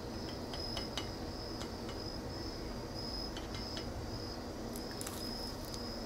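Crickets chirping: a high-pitched pulse that repeats about every half-second to a second, with a few faint clicks.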